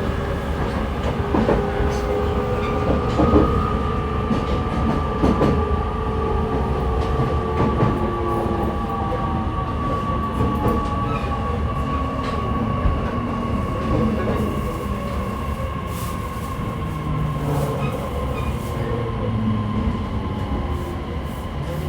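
Running sound of a JR East E501 series electric train heard inside a motor car: the traction motor and inverter whine in several tones that slowly fall in pitch as the train slows, with a steady rumble of wheels on rail. A few knocks from rail joints come in the first several seconds.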